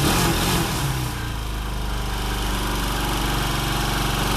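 Small ATV quad engine running steadily at idle, a little louder at the start and settling back about a second in.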